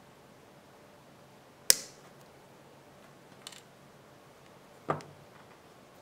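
Three sharp clicks of small metal hand tools, pliers and an alligator clip, being handled on a tabletop: the loudest about two seconds in, a faint one in the middle, and a heavier click with a dull knock near the end.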